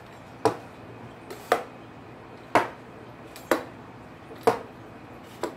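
Pizza cutter cutting rolled egg-noodle dough into strips on a countertop: a sharp knock with each stroke, about once a second, six in all.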